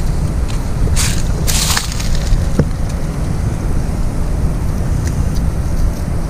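Wind buffeting the microphone in a steady low rumble, with two short crackling rustles about a second in.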